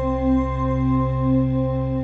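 Ambient background music of sustained, gently pulsing tones, like a singing bowl.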